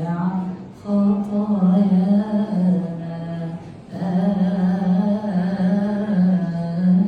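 A priest's voice chanting a long wordless melisma in Coptic liturgical style, holding notes that waver between close pitches. The chant breaks off briefly twice, about a second in and near the four-second mark, for breaths.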